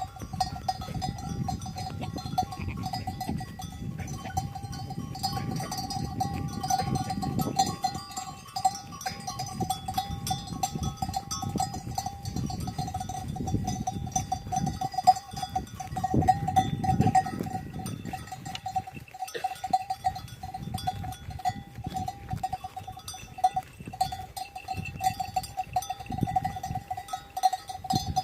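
A grazing herd of sheep with their neck bells ringing and clinking constantly, over a low, shifting rumble.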